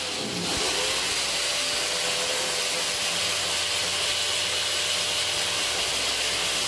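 Electric drill drilling into a wall, its motor whining up to speed in the first half second and then running steadily.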